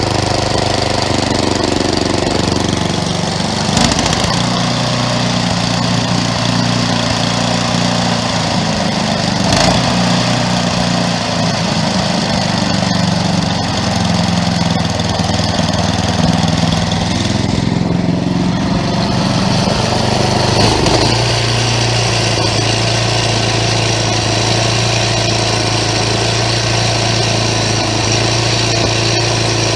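Craftsman 11/30 snowblower engine running steadily, its note shifting a couple of times, with a few brief knocks. It has just been fired up after the high-speed screw was backed off, because the engine had been revving too high.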